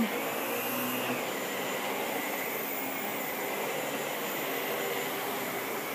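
Steady rushing room noise of a large hall's air conditioning, with a faint steady high whine.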